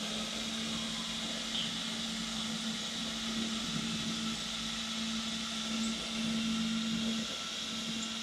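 AccTek AKM1325 4-axis CNC router running: a steady machine hum with a high whine above it and an even rushing noise, the hum's pitch breaking off briefly a few times.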